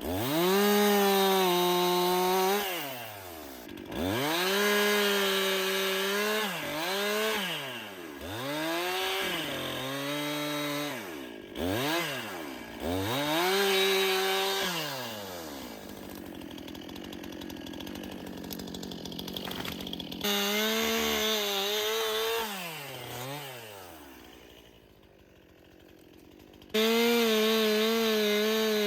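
Stihl MS 261 C-M two-stroke chainsaw revving up to full throttle and dropping back, again and again, while cutting trees. The pitch sags and wavers under load, and the sound breaks off and comes back suddenly a couple of times.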